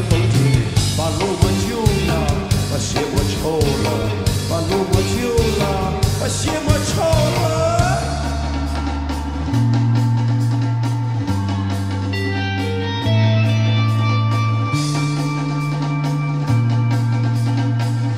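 Live rock band playing: a male singer's voice over drums, bass and electric guitar, then about eight seconds in the drums and voice drop out, leaving sustained bass notes that change every second or two under held higher notes.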